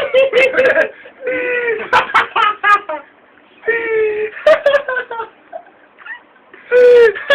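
A run of loud, high-pitched whining cries, each about half a second to a second long and falling in pitch, with sharp clicks and knocks between them.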